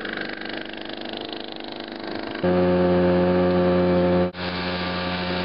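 Small outboard motor running steadily, pushing a light homemade boat along. The hum gets louder and fuller about halfway through and cuts out for a moment near the end.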